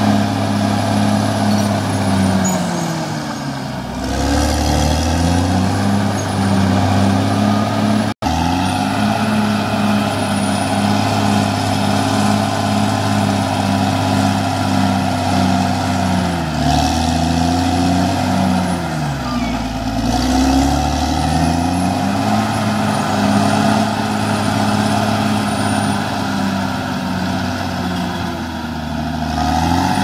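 CAT D6R XL bulldozer's diesel engine working hard as it cuts and pushes earth. Its pitch sags twice as the engine lugs down under the blade's load, then climbs back each time.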